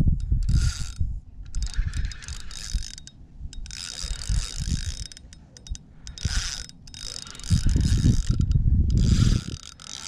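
Fishing reel being wound in stretches of about a second at a time, its gears whirring, as a hooked fish is brought in. A low rumble comes and goes underneath, loudest near the end.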